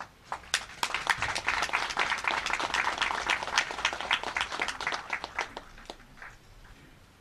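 Applause from a small group of people, a patter of separate claps that starts just after the beginning, builds up, then thins out and dies away about a second before the end.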